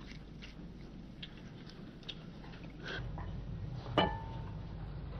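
Faint room tone with a few small scattered clicks; the background hum steps up about three seconds in, and a single sharp click with a short ringing tone comes about a second later.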